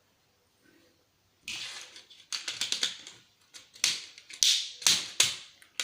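Irregular sharp clicks and clatters of small plastic and metal console parts being handled and pried at, starting about a second and a half in.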